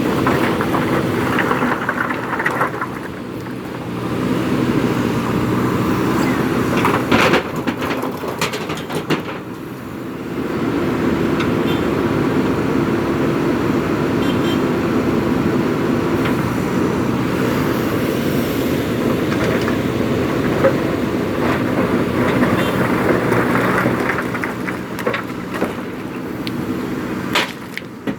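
JCB 3DX Super backhoe loader's diesel engine running under working load, its level rising and falling as the loader works, with a few sharp knocks around the middle and near the end.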